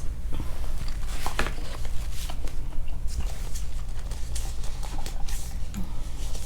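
Scattered crinkling, tearing and clicking of food packaging being handled in an unsuccessful attempt to open it, over a steady low hum.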